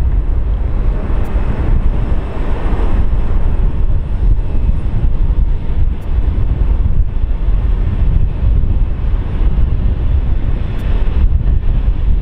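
Jet engines of an Airbus A320-family airliner as it touches down and rolls out along the runway: a loud, steady rumble, with wind rumbling on the microphone.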